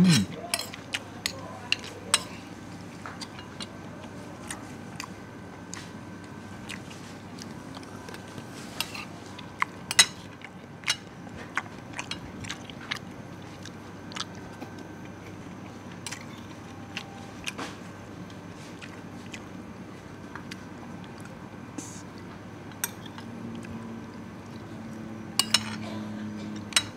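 Metal spoon and fork clinking and scraping against a ceramic plate while rice and broth are scooped up, in scattered sharp clicks over a steady low background hum.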